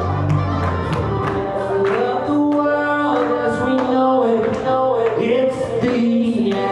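Live acoustic guitar strummed in a steady rhythm, with a voice singing long held notes over it.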